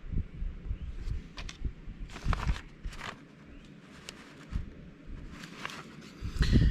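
Handling noise: scattered rustles, light clicks and soft thumps as wires and small components are moved about.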